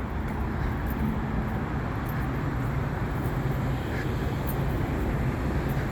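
Steady road traffic noise with a low engine hum running underneath.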